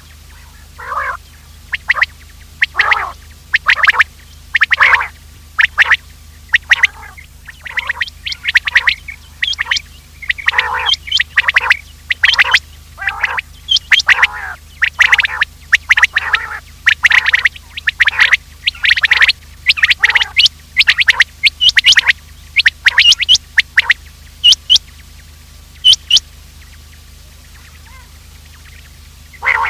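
Common quail calling: short, sharp calls repeated in uneven bunches, roughly one or two a second, with a short pause near the end. It is a recorded lure call used to draw quail in.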